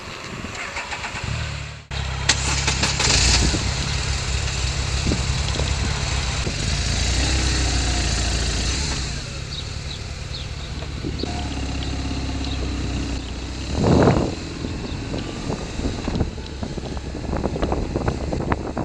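Motorcycle engine running as the bike pulls away and rides along, with road and rushing-air noise over it. A brief louder rush comes about 14 seconds in.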